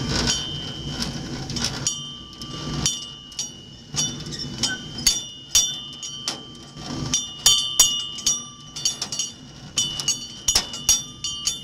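Miniature park train running on its narrow-gauge track: sharp, irregular clicks and clinks over a low rumble. The small brass bell on the locomotive rings again and again, its clapper swinging as the engine rocks.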